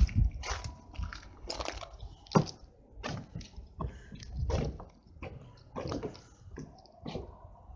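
Footsteps of a person walking, crunching over gravel and then stepping onto wooden deck boards: irregular steps, about one or two a second, over handheld-camera handling rumble.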